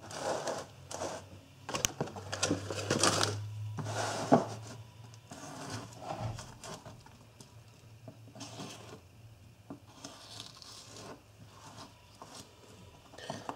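Spyderco Native 5 folding knife slicing a red bell pepper into strips on a plastic cutting board: a series of irregular crisp cuts and knife taps on the board, busiest in the first few seconds with the sharpest knock about four seconds in, then sparser.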